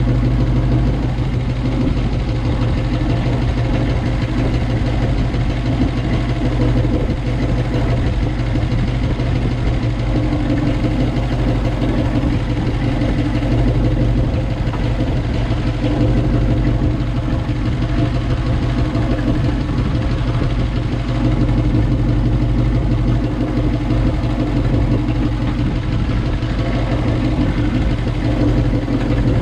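1957 Chevrolet Bel Air engine idling steadily, an even low hum that holds without revving.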